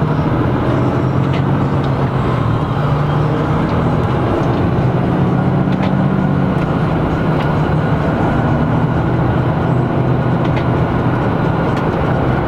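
Mercedes-Benz Actros 1851's 12.8-litre straight-six diesel heard from inside the cab, running loudly as the truck drives, its pitch shifting a few times.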